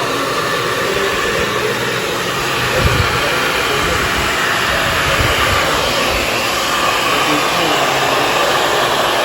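Handheld hair dryer running, a steady loud rush of air.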